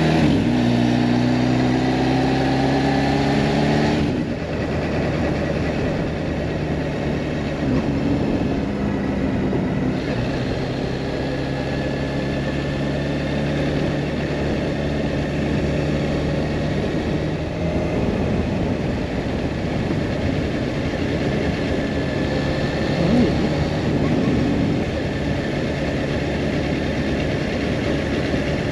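Kawasaki Ninja H2 SX's supercharged inline-four running as the motorcycle is ridden along, heard with wind and road noise. Its steady note changes about four seconds in, after which the wind and road noise are more prominent.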